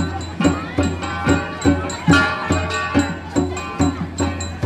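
Igorot gong music: flat gongs (gangsa) struck in a steady, even rhythm of about two to three strikes a second, each stroke ringing on with metallic tones, for the Igorot dance.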